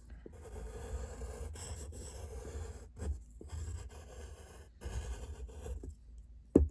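Drawing strokes on paper: a drawing tool scratching out lines in runs of a second or so, with short pauses between them. A brief, louder sound comes near the end.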